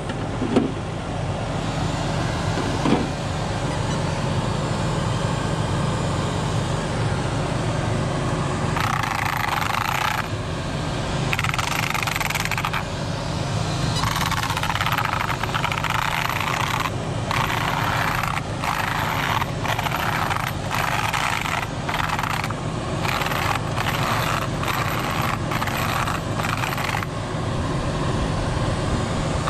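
Irregular clicks, rattles and scrapes of an RC car's plastic body and chassis being handled and turned over on gravel, busiest in the middle, over the steady low rumble of an idling truck.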